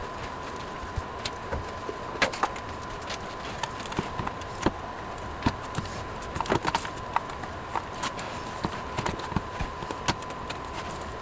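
Irregular clicks and light knocks of computer parts and tools being handled, over a steady high-pitched tone.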